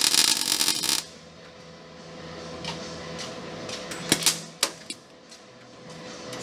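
A MIG welder's arc crackles loudly as it spot-welds a steel cab corner patch panel, then cuts off about a second in. A few sharp clicks and taps follow over a low steady hum.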